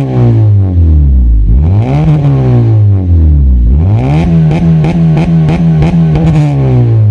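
Honda Civic FD's four-cylinder engine revved through an axle-back exhaust with the resonator deleted and a Greddy muffler. The revs fall back at the start, blip briefly about two seconds in, then climb again at about four seconds, hold high, and drop away near the end.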